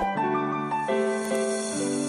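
Background music played on a piano-like keyboard: a melody of held notes moving from pitch to pitch over a sustained low note.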